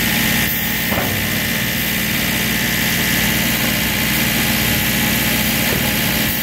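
Toilet paper converting-line machinery running steadily: a loud, continuous factory drone with a constant high whine over a low hum.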